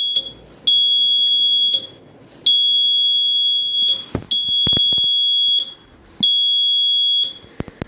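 Relay-switched buzzer of a laser-and-LDR security alarm sounding a steady high-pitched tone in four bursts of about a second each, switching on and off as the laser beam to the LDR is blocked and cleared. A few sharp clicks around the middle and near the end.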